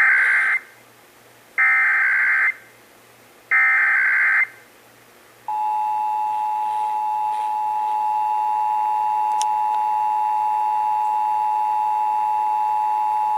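Emergency Alert System test: three short bursts of the SAME digital header, a buzzy data warble, each about a second long and a second apart, then, about five and a half seconds in, the steady two-tone EAS attention signal, which holds to the end.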